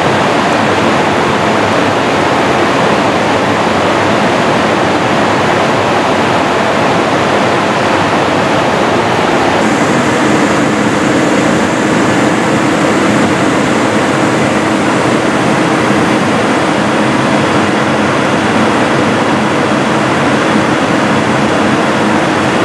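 Steady loud rushing of airflow and jet engine noise inside a KC-135 tanker's cockpit in flight, with a faint hum joining about ten seconds in.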